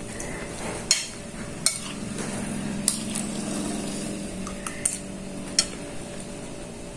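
Metal spoon clinking and scraping against a ceramic plate of rice while eating: a handful of sharp separate clinks. A low steady hum runs for a couple of seconds in the middle.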